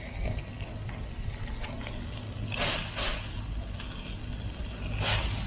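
Plastic trigger spray bottle squirting water onto hot charcoal under a grill: two short hissing sprays, about two and a half seconds apart.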